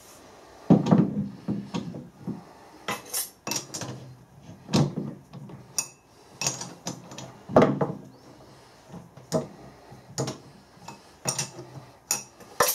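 A steel bar slug knocking against the jaws of a four-jaw lathe chuck as it is seated by hand, and a chuck key turning in the jaw screws: a series of irregular metallic clunks and clinks.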